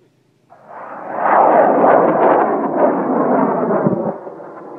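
High-power rocket motor burning: a loud, rough rushing roar that builds within about a second, holds for about three seconds, then fades away.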